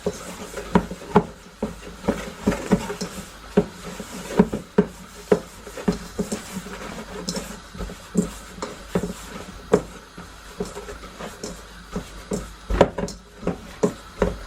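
Dumpling dough being mixed and worked by hand in a bowl: irregular knocks and thuds against the bowl, about two a second, with rubbing between them.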